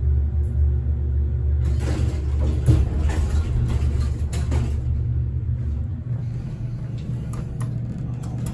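Elevator car with a steady low hum, its stainless-steel doors sliding open starting about two seconds in, with a knock partway through the opening. The hum drops away about six seconds in, and there are a few sharp clicks near the end.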